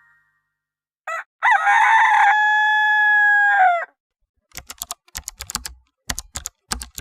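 A rooster crowing once: a short note, then a long held call that drops away at the end. It is followed by a few seconds of quick, irregular clicking of computer keyboard typing.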